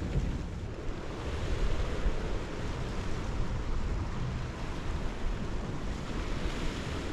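Wind blowing across the microphone as a steady low rumble, with waves washing onto the shore below.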